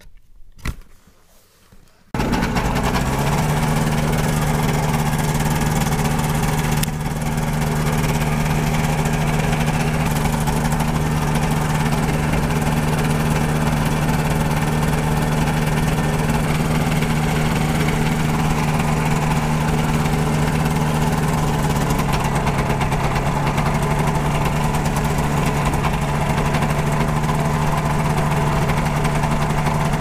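Gyrobee ultralight gyroplane's engine and propeller starting up about two seconds in after a single sharp click, then running at a steady speed.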